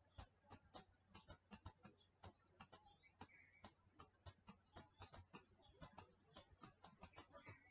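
Faint, irregular clicks and taps, about four or five a second, from writing a formula by hand on a digital whiteboard.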